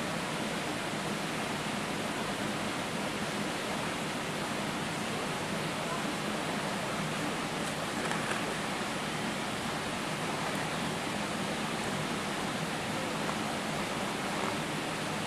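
Steady rush of flowing stream water, an even hiss that does not change.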